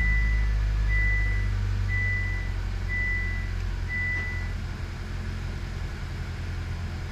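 A 2022 Honda Accord's engine has just started and is running at idle, slightly louder at first and then settling lower. Over it, the car's warning chime beeps about once a second and stops after roughly four and a half seconds.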